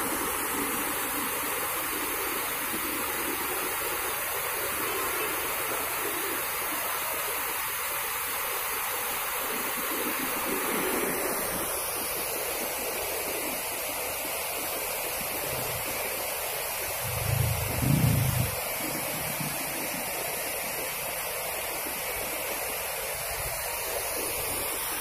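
Steady rushing of river water spilling over a low weir. A brief low rumble comes about two-thirds of the way through.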